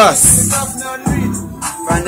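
Hip hop beat playing, with drum hits and a man's voice over it.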